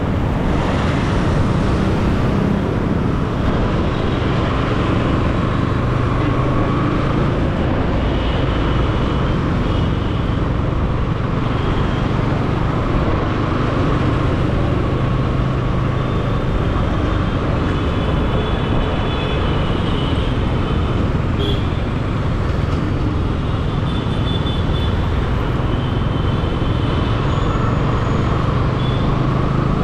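Steady motorcycle riding noise picked up by a helmet-mounted camera: wind rushing over the microphone, with engine and traffic noise beneath it.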